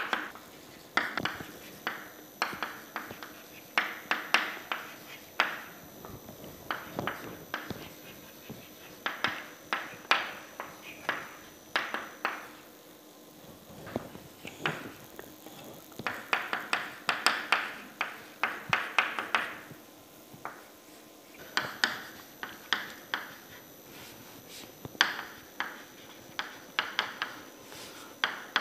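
Chalk tapping and scratching on a blackboard as words and equations are written: clusters of quick sharp taps, several a second, broken by short pauses.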